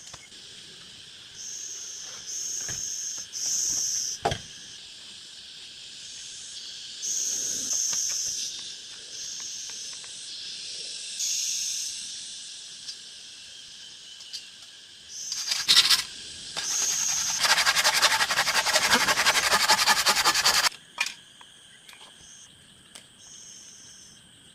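Insects calling in forest ambience: short high chirps repeated in bursts over a steady high-pitched drone, with a few sharp knocks. About two-thirds of the way in, a loud, rapidly pulsing insect buzz lasts about three seconds and stops abruptly.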